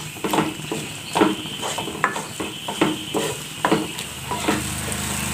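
Wooden spatula stirring and scraping scrambled egg and onion masala around a nonstick kadai over full flame, a stroke about every half second, over a steady sizzle. A low steady hum comes in about four seconds in.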